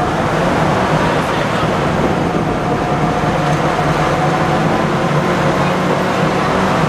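Engine of a WWII DUKW amphibious duck boat running steadily as the boat cruises on the river, a constant low drone.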